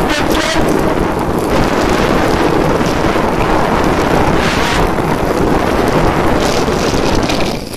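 Heavy wind rush and buffeting on the microphone of a Honda CBR150R held flat out at about 140 km/h, near its top speed, with its single-cylinder engine running high in the revs underneath. The rush drops off suddenly near the end.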